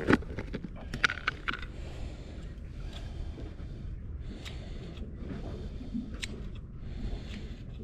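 Fishing tackle being handled in a small plastic case: a sharp knock at the start, a few clicks about a second in, then scattered light clicks and rattles over a steady low rumble.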